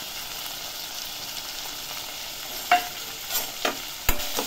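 Shallots, tomatoes and garlic sizzling steadily in oil in a stainless steel pan, the masala frying. A few sharp metal clinks come in the second half, the loudest near the end.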